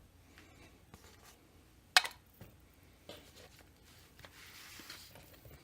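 Small parts handled on a workbench: a sharp tap about two seconds in, a few lighter clicks, and a soft rustle near the end.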